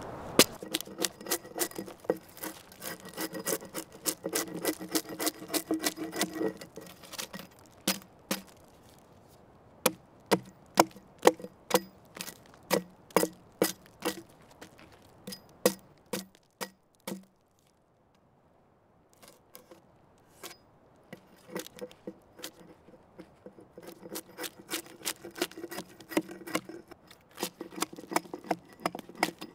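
Helko Werk Black Forest Woodworker hatchet chopping into a log: repeated sharp strikes of the steel head biting into wood, about one to two a second, pausing for a couple of seconds about halfway through.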